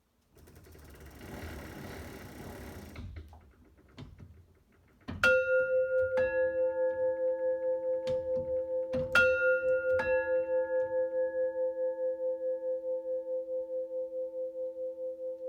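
Chain-pulled mechanical doorbell: a few seconds of noisy mechanism movement, then its tuned chimes struck in a two-note ding-dong, higher note then lower, played twice. The chimes ring on long with a steady pulsing beat.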